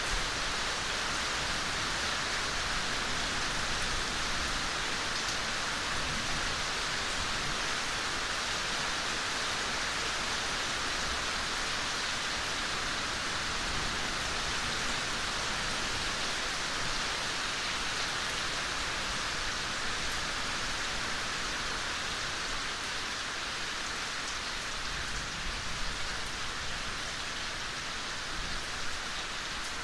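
Steady soft rain falling in a forest: an even hiss of rain on leaves and ground with scattered individual drops, a few slightly louder drops near the end.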